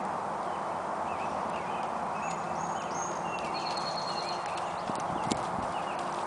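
Hoofbeats of a ridden horse on a dirt arena, growing clearer and more frequent in the second half as it comes closer.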